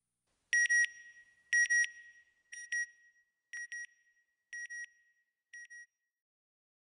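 Electronic beep sound effect for an end logo: short, high double beeps at one steady pitch, a pair about every second, six pairs in all, each quieter than the one before until they fade out.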